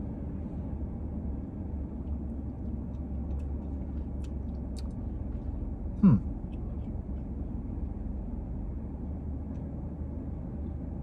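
Steady low rumble of a car idling, heard inside the cabin, under faint sucking and clicking from a plastic straw drawing on a thick, semi-frozen milkshake. About six seconds in there is one short, louder sound that slides down in pitch.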